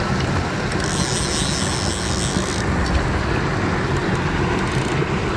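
Small stream rushing steadily over stones and a low waterfall, with wind buffeting the microphone. A brighter hiss joins in for about two seconds, starting about a second in.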